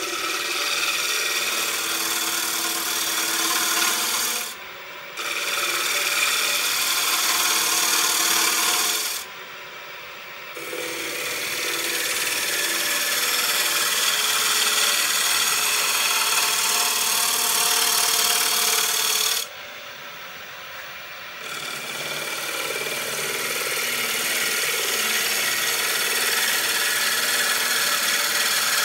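Turning tool cutting a spinning wooden bowl on a wood lathe: a steady hiss of shavings peeling off the wood. The cut breaks off three times for a second or two as the tool comes away from the wood.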